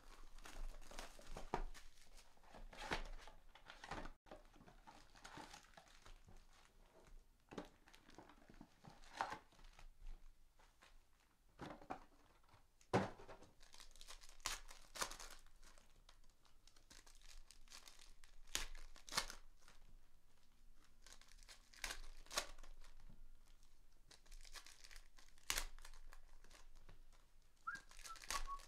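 Trading-card box and packs being opened: wrappers tearing and crinkling in irregular crackles, with scattered light clicks.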